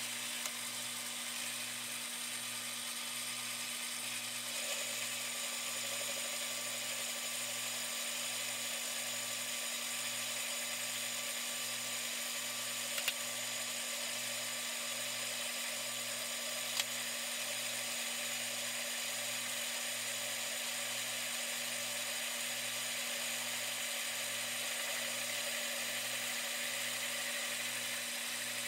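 Metal lathe running steadily with a home-cast piston blank spinning on a mandrel: a constant motor and gear whir over a low hum that pulses a little over once a second. Two short sharp clicks come midway.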